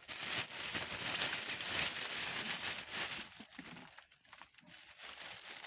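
Plastic bag rustling and crinkling as it is handled for about three seconds, then quieter.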